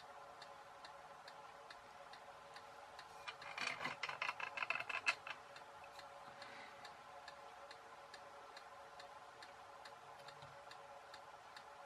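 A clock ticking steadily over a faint hum. About three to five seconds in comes a short spell of clicking and rustling as a small circuit board and its wire leads are handled.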